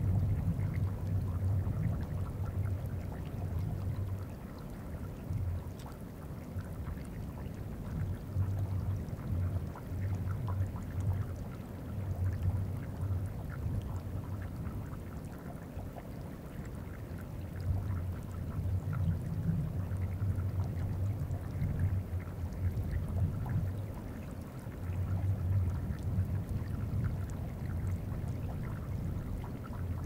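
Deep bass rumbles from the moving glacier ice, picked up through geophones, swelling and fading in patches of a few seconds. Underneath runs a steady fine trickle of meltwater on the glacier surface.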